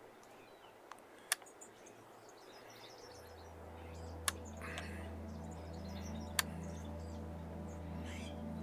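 Faint outdoor ambience: small birds chirping, a few single sharp clicks, and a low steady hum that fades in about three seconds in and slowly grows louder.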